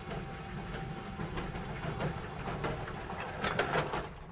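Motorized target carrier of an indoor range running along its overhead rail, bringing the target back to the bench with a steady motor hum and whir. It rattles louder about three and a half seconds in as the hanger comes close.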